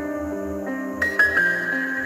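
Background music: sustained chords over a soft pulsing bass, with a bright high note coming in about halfway through.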